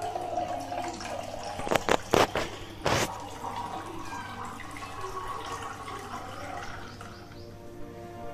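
Fizzy mint lemonade made with lemon-lime soda being poured from a jug into a glass wine glass: a steady splashing stream with fizz as the glass fills. A few sharp clinks come about two and three seconds in.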